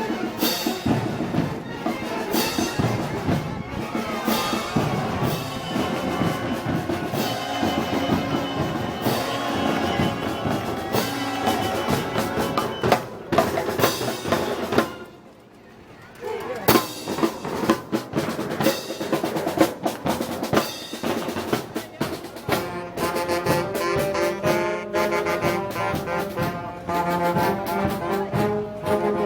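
Festival brass band playing, trumpets and trombones over drums. The music drops out briefly about halfway, then comes back with long held brass chords near the end.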